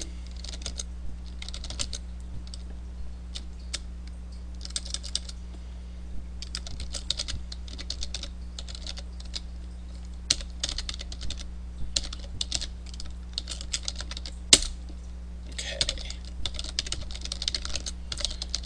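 Computer keyboard being typed on in quick runs of keystrokes with short pauses between, with one sharper, louder key strike about fourteen and a half seconds in. A steady low electrical hum runs underneath.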